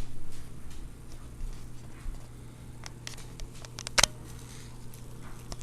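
Faint scraping and small ticks of hands working the old, dry-rotted foam surround loose from a car-door 6x9 speaker, with one sharper click about four seconds in, over a steady low hum.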